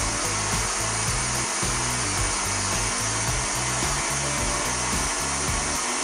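KitchenAid Artisan stand mixer running steadily, its flat beater whipping egg into creamed butter and sugar in a steel bowl. Background music with a regular bass beat plays underneath.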